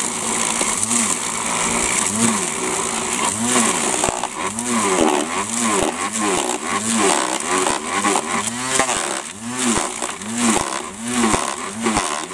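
String trimmer (strimmer) running with its head down in a trug of wet leaves, shredding them for mulch. Its motor whine rises and falls in pitch again and again, about one and a half times a second, as the spinning line chews through the leaves.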